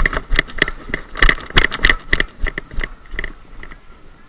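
Running footsteps on the dry leaf litter of a forest floor, with the wearer's gear rattling at each stride, about three steps a second. They slow and stop about three and a half seconds in.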